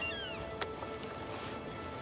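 Background music of sustained held notes. Right at the start comes a single short mewing call that rises and then falls in pitch.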